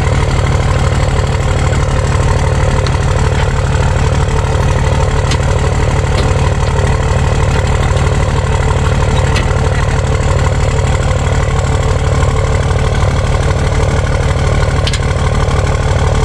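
Truck engine idling steadily close by, with an even low pulsing and a few faint ticks over it.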